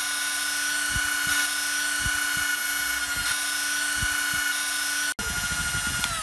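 Parkside PWSA 12 B1 12 V cordless angle grinder running free with no load, a steady whine at full speed; right at the end it begins to wind down, its pitch falling.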